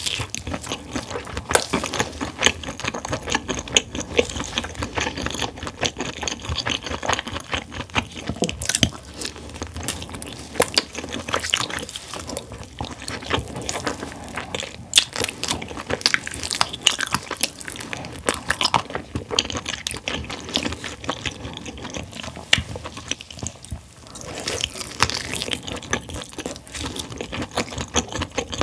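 Close-miked eating sounds: biting into and chewing sticky, sauce-coated roasted chicken wings, with wet mouth sounds and a dense run of small clicks.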